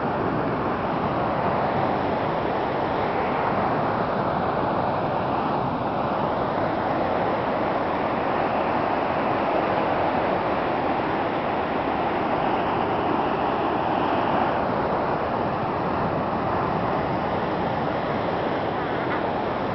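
Floodwater rushing through a swollen river's rapids and past bridge piers: a steady, loud, unbroken rush of churning water.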